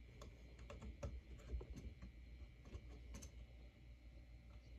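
Faint, irregular clicks and taps of plastic LEGO pieces being handled, as a minifigure is worked to grip two blasters.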